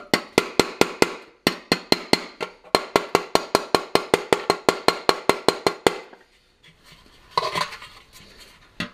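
Small hammer tapping a steel punch against a stainless steel 1966 Ford Galaxie wheel cover to work out a dent: quick even metal taps, about five a second, with two short pauses, stopping about six seconds in. A brief clatter follows as the cap is lifted and turned.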